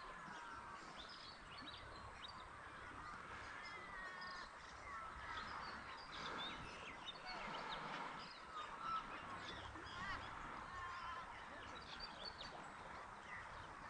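Faint outdoor birdsong: several birds chirping and whistling over one another, with a low steady background hiss.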